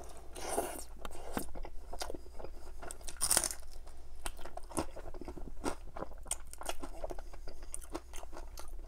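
Close-miked biting and chewing of a crispy fried chicken drumstick coated in butter chicken sauce. The coating crunches under the teeth with two louder bites, about half a second in and about three seconds in, then a steady run of wet chewing crackles.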